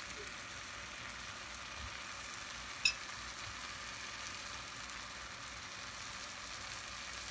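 Onion and tomato masala sizzling steadily in oil in a frying pan, with a single sharp click about three seconds in.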